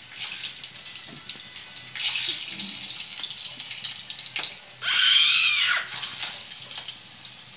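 Bay leaves and whole spices sizzling and spattering in hot oil in a kadhai, a steady hiss that drops out briefly in places. About five seconds in, a short high-pitched voice rises and falls over it.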